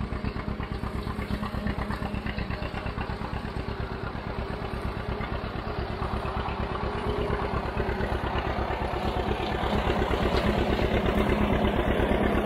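John Deere Model A tractor's two-cylinder engine running, its exhaust popping in a steady rapid beat that grows louder as the tractor drives closer. The owner says the engine has a bad head gasket.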